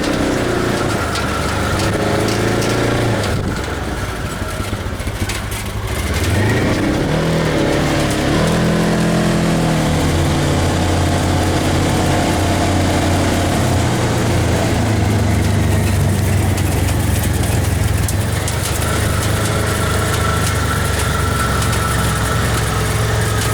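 Polaris RZR side-by-side's engine running as it drives, easing off about three to six seconds in, then revving up with rising pitch and holding a steady drone.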